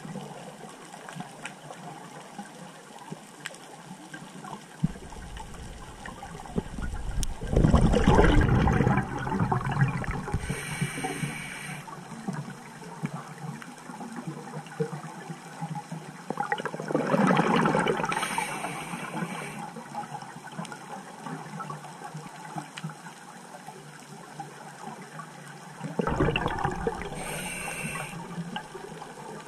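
Scuba diver breathing on a regulator underwater: three loud rushes of exhaled bubbles about nine seconds apart, each followed by a short hiss of the regulator.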